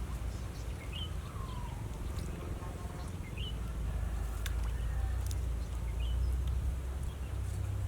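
A bird calling outdoors: a short rising chirp about three times, over a steady low rumble, with a couple of faint clicks.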